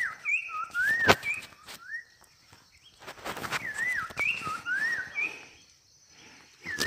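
Poksay (laughingthrush) giving clear, wavy whistled calls in two bouts, with a short pause between them, used to lure wild birds to the trap. A few sharp clicks and rustles of handling come through the calls.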